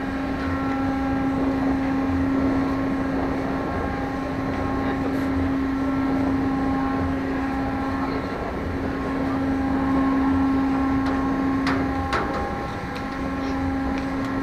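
A car ferry's engines running with a steady drone and a constant hum. There are two sharp clicks about twelve seconds in.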